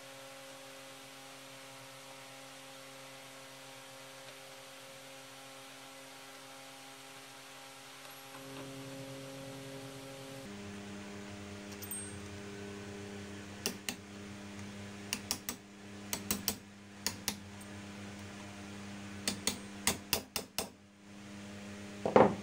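Hammer tapping a punch set against a chainsaw's clutch: several groups of sharp taps in the second half, over a steady low hum.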